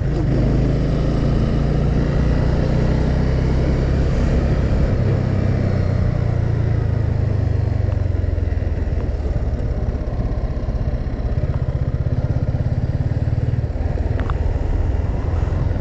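Motorcycle engine running steadily while riding at speed, a continuous low hum with noise over it.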